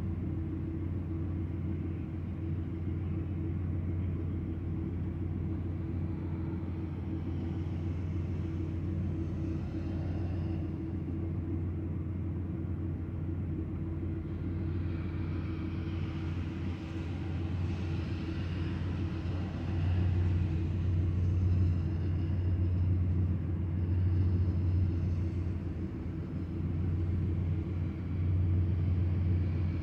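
Vehicle engine idling, heard from inside the cabin: a steady low hum that grows a little louder about two-thirds of the way through.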